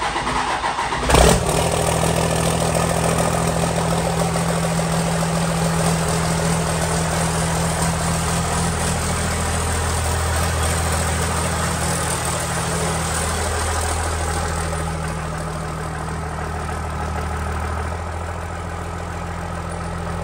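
First-generation Dodge Cummins 5.9 L inline-six turbo diesel cranking and catching about a second in on a cold start, puffing white smoke through a hood-mounted exhaust stack. It then settles into a steady diesel idle as it warms up.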